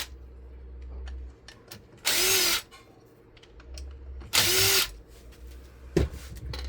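Handheld power drill or driver run in two short bursts of about half a second each, about two seconds apart, while working fasteners out of a ceiling fan motor, followed by a sharp click near the end.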